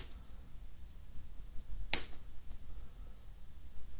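Small scissors snipping craft-feather fibres: one sharp snip about halfway through and a fainter one just after.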